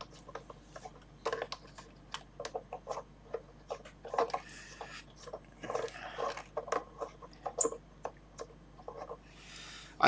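Irregular scratchy clicks, taps and crackles from wires and spring terminals on an electronics kit board being jiggled by hand, while a microphone's banana-plug connection is checked for a loose contact.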